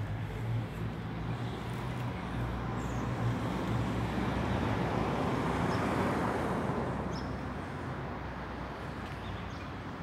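Street traffic: a vehicle passing on the road, its noise swelling to a peak about halfway through and then fading, over a steady low engine hum.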